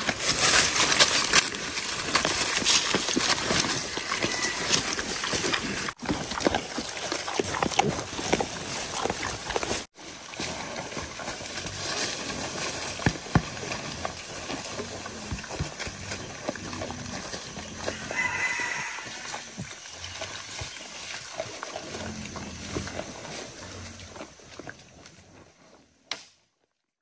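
Wild boar and their striped piglets foraging through dry leaf litter: steady rustling and crackling of leaves under snouts and hooves, with occasional short grunts. The sound fades out about a second before the end.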